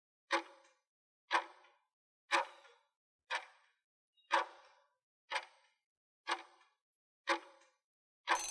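Countdown-timer sound effect: a clock tick once a second, eight times, then a ringing alarm starts near the end as the countdown runs out.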